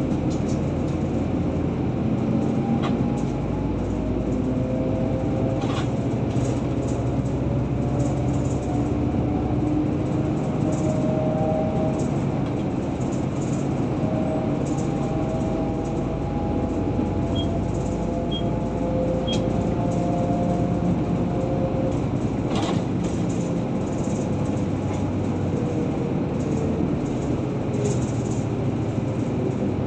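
A car in motion, heard from inside the cabin: a steady rumble of engine and tyre noise, with the engine's pitch slowly rising and falling as the car speeds up and slows.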